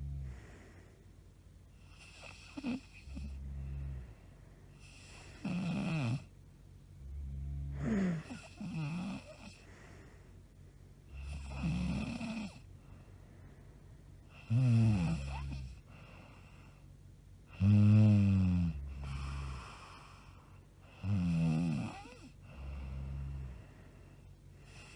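A woman snoring loudly in her sleep: about eight snores, one every three seconds or so, some a low rumble and some with a wavering pitch. The loudest comes about eighteen seconds in.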